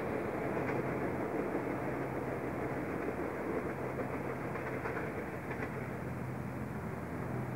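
Electric suburban train, a Tangara set, running away along the line: a steady rail rumble with a low hum that eases slightly as it draws off.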